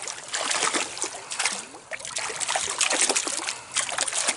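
Small stream water trickling and splashing, with short, uneven splashes rising and falling throughout.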